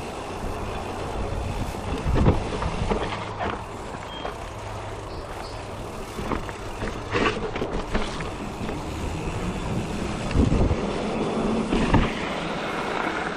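Giant Reign E+ electric mountain bike rolling down a rough trail: steady tyre and wind noise with a low hum beneath, and repeated knocks and rattles as the bike goes over bumps, the hardest about two seconds in, around seven seconds, and twice near the end.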